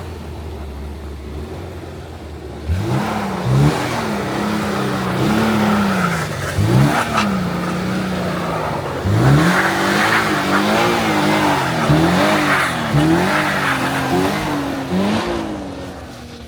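Toyota GR86's 2.4-litre flat-four engine running low and steady for about three seconds, then revving up and down again and again as the throttle is worked through slides on snow, before settling near the end.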